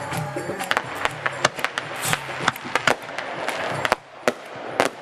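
Fireworks going off in a rapid, irregular string of sharp cracks and pops, many per second.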